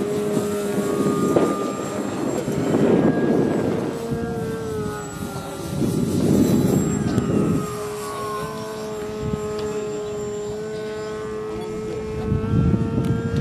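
Steady whine of an electric radio-controlled model airplane's motor and propeller, its pitch drifting slightly as it flies. Gusts of wind buffet the microphone about a second in, around six seconds, and near the end.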